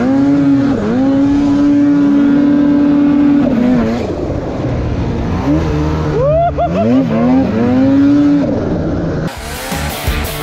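Ski-Doo snowmobile engine revving in the rider's hands: held at high revs for a few seconds, dropping back, then blipped up again in several rising sweeps. Near the end it gives way to rock music.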